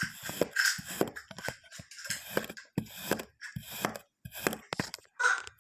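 Kinetic sand being cut and pressed: a run of short crunching, scraping strokes with sharp taps, about two a second.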